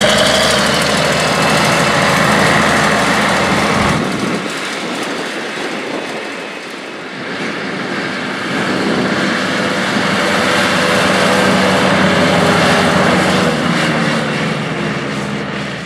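Case 1570 tractor's turbocharged six-cylinder diesel engine running as the tractor drives by. The sound drops about four seconds in, swells again, and fades near the end.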